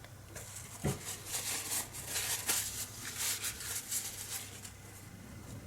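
Small metal air-rifle parts being handled and fitted: a sharp click about a second in, then about three seconds of quick, scratchy clicks and rattles.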